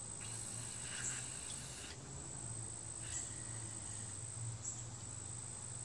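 A short hiss of WD-40 sprayed from a pump-up air sprayer, lasting about a second and a half, over a steady high-pitched trill and a low hum.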